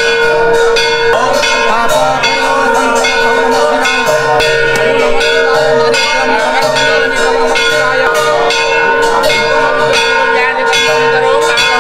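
Hindu temple bells ringing nonstop, struck rapidly over and over, so their ringing tones hold steady under the repeated strikes.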